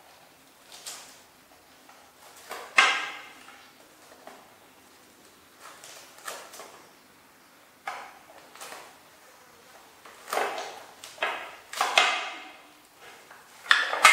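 A baby monkey tugging at green lotus seed pods on a plate, giving a run of short, irregular scrapes and rustles as the pods and plate shift on the wooden floor; the loudest come about three seconds in and in the last few seconds.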